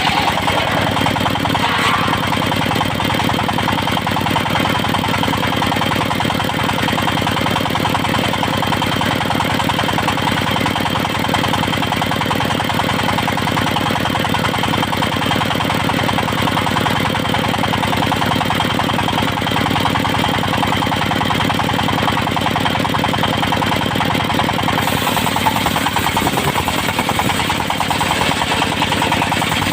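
Engine-driven circular sawmill running steadily, a fast engine beat under the whine of the saw; a sharper hiss comes in about 25 seconds in.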